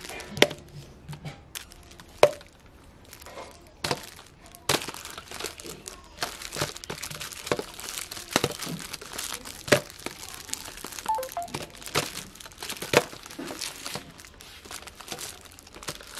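Crinkling of the shiny plastic wrappers on giant lollipops as they are handled and pressed together, with many sharp clicks and knocks. The crinkling thickens about five seconds in.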